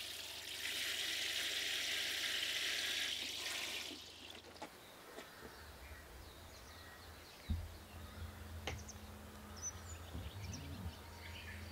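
Water showering from a plastic watering can's rose onto potting soil and basil leaves, a steady hiss that stops about four seconds in. After it, a quiet background with a low hum, a knock, and faint bird chirps.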